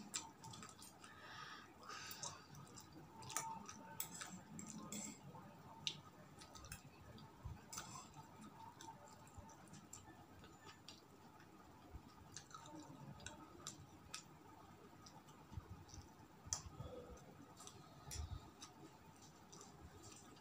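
Faint eating sounds: quiet chewing with scattered small mouth clicks.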